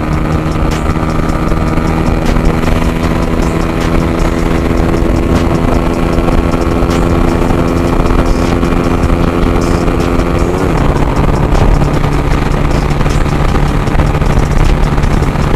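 Z200S sport motorcycle engine at full throttle on a top-speed run, through an open Akrapovic dual-outlet muffler with big elbow and no silencer. Its pitch climbs slowly as it pulls. About ten and a half seconds in, the note drops and the higher tones fall away.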